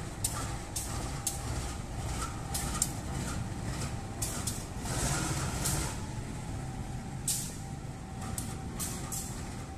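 CC201 diesel-electric locomotive running slowly while being shunted, its engine a steady low rumble. Short sharp hisses come through every second or so.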